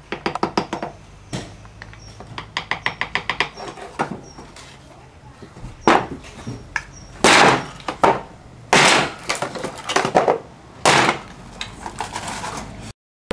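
A small hammer tapping a chisel into a block in quick runs of sharp taps, then four heavy blows of a large mallet smashing the block, each a loud crash.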